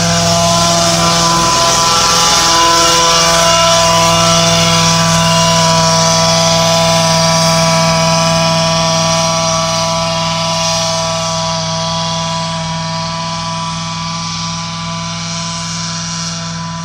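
Mosquito-fogging truck passing while it sprays, its sprayer motor and blower giving a steady multi-tone drone. It is loudest a few seconds in, then slowly fades as the truck drives away.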